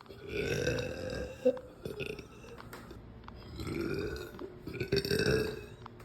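A woman burping: two long, deep belches, the first starting right away and lasting about a second and a half, the second coming about three and a half seconds in and running about two seconds.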